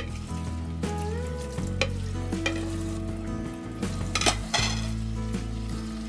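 Tap water running into a stainless-steel sink while a plate and a spoon are washed, with several sharp clinks of crockery and cutlery, the loudest about four seconds in. Background music with held, slowly gliding notes over a steady bass plays throughout.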